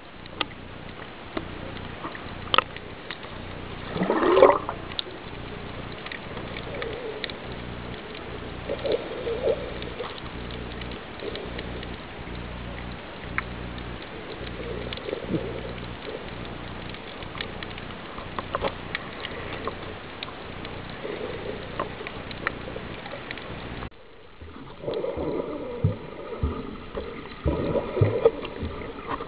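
Underwater ambience picked up by a submerged camera: a steady low hum with gurgling and scattered clicks, and every few seconds a louder swirl of bubbling. About five seconds before the end the background drops suddenly and changes.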